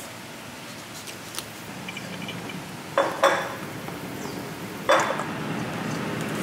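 Banana bread batter being worked with a silicone spatula in a stainless steel mixing bowl, a soft steady mixing noise, broken by three sharp metallic clinks against the bowl: two close together about three seconds in and one near five seconds.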